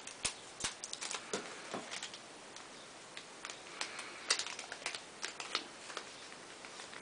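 Yu-Gi-Oh booster packs being handled: irregular crinkles and sharp clicks of the foil wrappers, coming in quick clusters.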